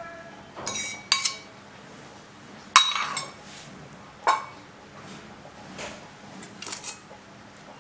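Stainless steel bowl, spoon and plate clinking about half a dozen times, the loudest a ringing clink near three seconds in, as beaten egg is poured and spooned over paneer fingers.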